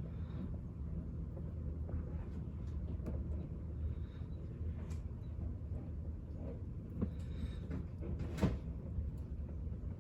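A steady low machine-like hum, with scattered light clicks and one sharper click about eight and a half seconds in.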